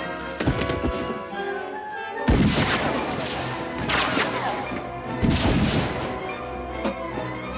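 Film score music with three loud crashes about two, four and five seconds in, each trailing off in a rattle of noise.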